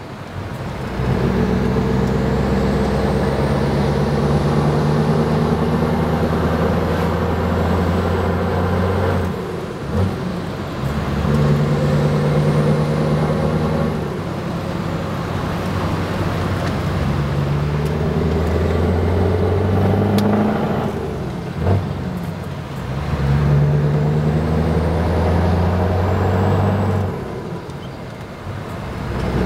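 Scania R 500 V8 diesel engine with open exhaust pipes pulling the truck up through the gears, heard from the cab. The engine note holds steady in each gear and drops away briefly at four gear changes, with a short click at two of them.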